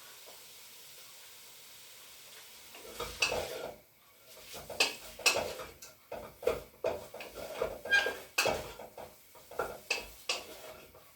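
A utensil stirring diced chicken in a pot, clinking and scraping against the pot from about three seconds in, over a faint steady sizzle of the chicken browning in a little oil and water.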